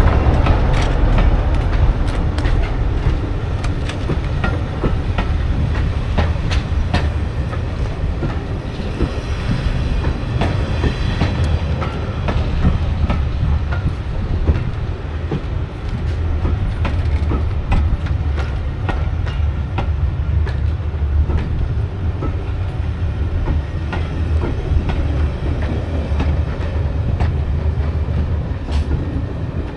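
Diesel train running on the line, a steady low rumble with its wheels clicking over the rail joints.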